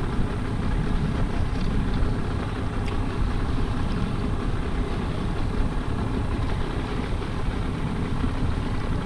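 Steady low rumble of a boat's outboard motor running at trolling speed, mixed with wind noise on the microphone.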